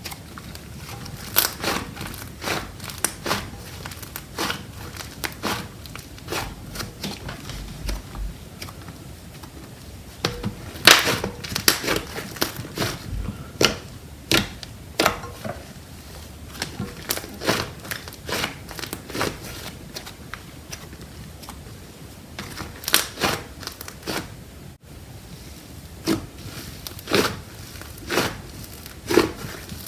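Slime being squeezed and poked, making irregular sharp clicks and crackling pops, with louder clusters of clicks now and then.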